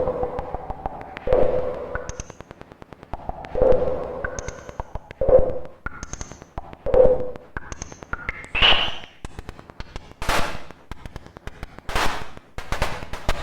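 Old electronic white noise machine playing synthetic sounds through a crackly speaker: short tones and high chirps repeating every couple of seconds, then about ten seconds in a change to rushing noise surges that rise and fall like surf.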